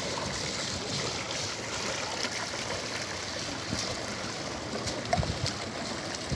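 Sea water splashing and rushing around a fishing net as it is hauled up over the side of a wooden boat, with a few dull bumps about five seconds in.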